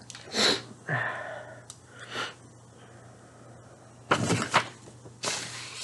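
Paper and cardboard rustling and sliding as a card and postcard are handled, in several short swishes; the loudest two come about four and five and a half seconds in.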